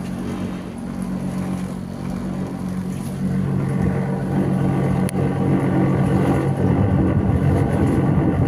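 A motor engine running steadily, its hum getting louder about three seconds in.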